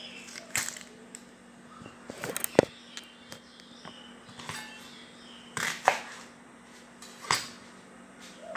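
Scattered knocks and clatter of kitchen handling at a wooden cutting board as a red onion is peeled and set down, the loudest about two and a half seconds in. A faint steady hum runs underneath.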